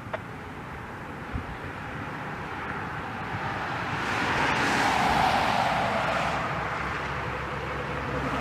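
A car driving past: tyre and road noise swells to a peak about five seconds in, with a gliding pitch as it passes, then fades.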